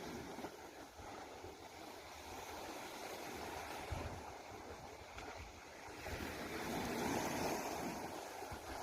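Sea waves washing onto the shore, swelling louder about six seconds in, with wind gusting on the microphone.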